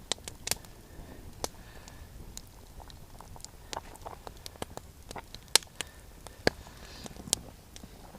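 Wood fire crackling, with sharp pops and snaps coming at irregular intervals a fraction of a second to a second apart.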